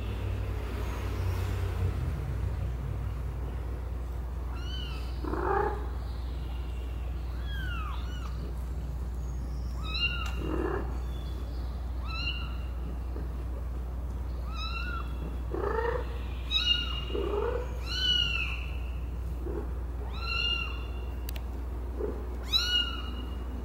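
Kittens mewing: a string of short, high-pitched, arching mews every second or two, starting a few seconds in, over a steady low hum.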